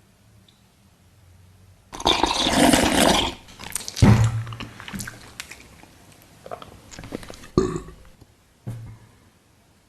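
Close-miked eating sounds of jelly-like watermelon egg soup. About two seconds in there is a loud slurp lasting over a second, then a heavy gulp, then softer wet chewing and mouth noises with a few swallows near the end.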